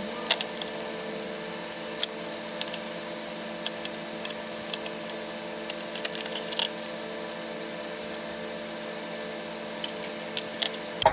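Scattered small clicks and taps from handling and cutting thin wires and clear heat shrink tubing, with a cluster about six seconds in and several near the end, over a steady electrical hum.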